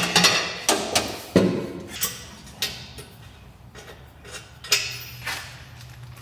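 Irregular sharp metal knocks from a hammer tapping out exhaust studs, about eight blows with pauses between them. This is done so the new exhaust will fit.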